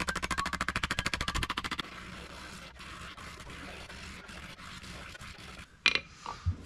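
Ball peen hammer rapidly peening the edge of a sheet of 22-gauge steel held on an anvil: a fast, even run of light metallic strikes, more than ten a second, for about the first two seconds. After that it is quieter, with one sharp knock near the end.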